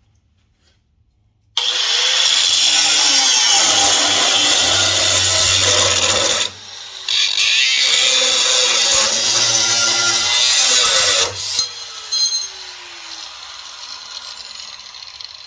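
Bauer right-angle angle grinder with a cutoff wheel cutting 14-gauge sheet steel under as much hand pressure as possible: a loud cutting noise starts about one and a half seconds in, dips briefly midway, and runs on until about eleven seconds in. Then the grinder is let off and its motor winds down with a falling whine. The motor does not stall under the load, but the hard push wears the cutoff wheel down fast.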